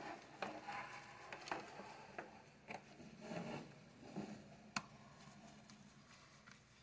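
Faint small clicks and scrapes of a screwdriver working a side-plate screw into a Penn Jigmaster 500S fishing reel while the screw is being started in its threads, with one sharper click about five seconds in.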